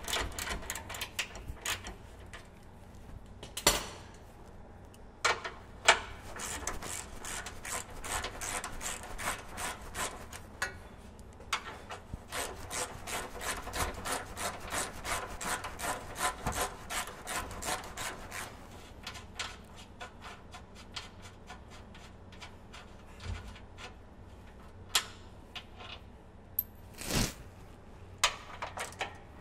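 Hand ratchet clicking in long runs, with short pauses, as the nuts are backed off the panhard rod bolts on a Toyota Land Cruiser's rear axle. A few louder single knocks stand out, the loudest near the end.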